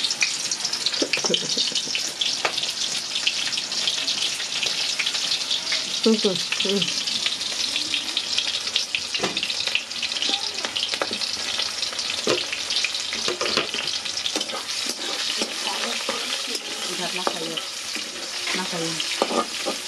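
Onion pakoras frying in a wok of hot oil: a steady, dense sizzle with sharper crackles and pops now and then.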